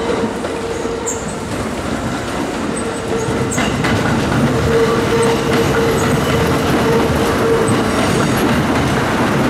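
Two Kintetsu electric trains rolling slowly over the station junction's switches and crossings: wheels clacking over the rail joints and frogs, with a steady whine throughout and a louder clack about three and a half seconds in.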